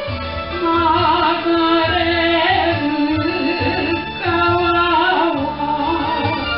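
A male singer performing an enka ballad over an instrumental backing track, holding long, wavering notes with vibrato.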